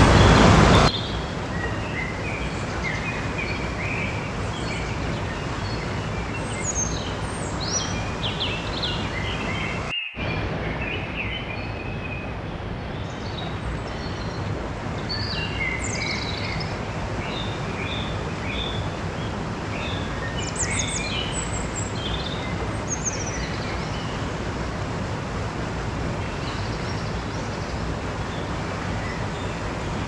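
Mountain stream rushing over rocks in a steady wash, with small birds chirping and calling off and on over it, most often in the first two-thirds. A louder rush cuts off sharply about a second in, and the sound drops out for a moment about ten seconds in.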